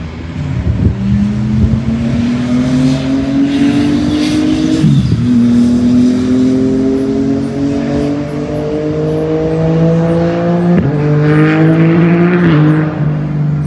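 Motor vehicle on a nearby road accelerating hard and loud, its engine pitch climbing steadily and then dropping sharply at a gear change, twice.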